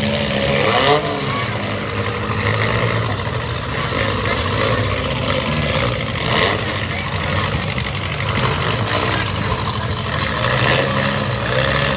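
Several small demolition-derby cars' engines running and revving together, with a couple of thumps as the cars ram one another.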